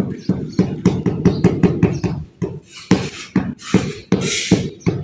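Rubber mallet tapping a ceramic floor tile down into its mortar bed in quick, dull knocks, about five a second, pausing briefly midway. A short scraping swish about four seconds in, as a hand wipes across the tile.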